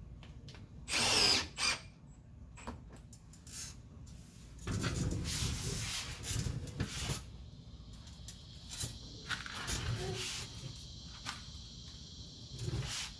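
Cordless drill driving a screw into pine tongue-and-groove ceiling boards, a short loud burst about a second in, followed by further softer bursts and handling noises.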